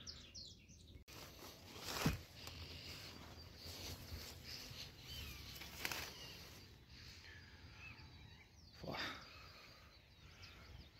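Faint bird chirps over a quiet outdoor background, with three brief swishes of brush or footsteps about two, six and nine seconds in.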